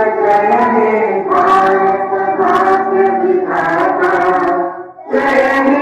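A large group of schoolchildren singing a prayer together in unison, in long held phrases, with a brief pause for breath about five seconds in.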